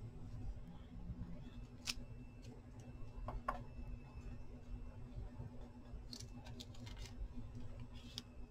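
Faint handling of paper scraps and a glue stick: a few light clicks and short rustles, loudest around 2 and 3.5 seconds in and again after 6 seconds, over a low steady hum.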